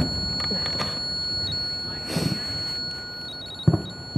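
Electronic ghost-hunting sensor device beeping: short high pips, one about 1.5 s in and a quick run of four near the end, over a thin steady high tone. A loud knock comes at the very start and a smaller one near the end.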